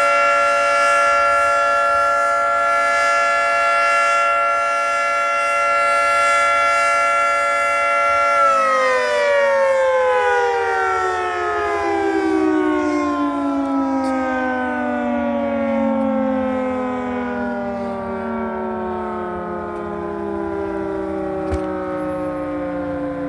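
Federal Signal Thunderbolt 3T22 tornado siren running in a test, sounding a steady chord of several tones. About eight seconds in it starts winding down, its pitch falling slowly as the rotor coasts.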